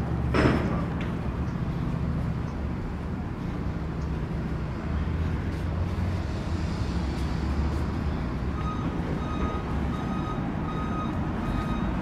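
Steady low rumble of road traffic and vehicle engines, with a sharp clank about half a second in. From about nine seconds in, short electronic beeps repeat on and off.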